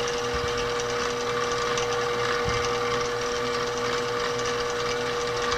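Benchtop milling machine running with its spindle turning a half-inch roughing end mill that is not yet cutting: a steady machine hum with one clear, unchanging tone.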